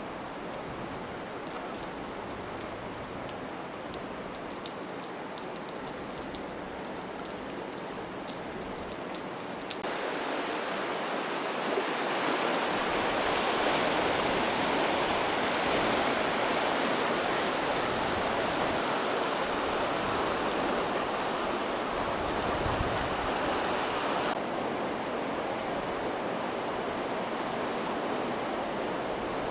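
Rushing floodwater: a steady, broad rush of fast-moving muddy water, growing louder about a third of the way in and easing back near the end.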